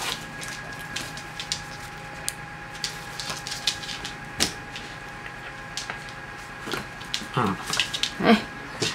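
Scattered light clicks and taps from a dachshund tugging at a soft fabric frisbee toy: claws and paws on the wooden floor and the toy being grabbed and shaken, over a faint steady hum. Two short falling vocal sounds come near the end.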